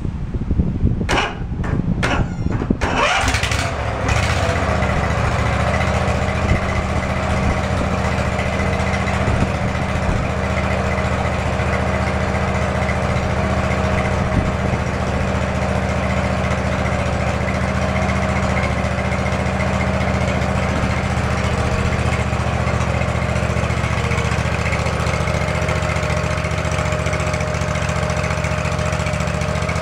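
Zero-turn lawn mower's engine sputtering as it starts. It catches about three seconds in, then runs steadily at idle, drawing fuel from its own tank.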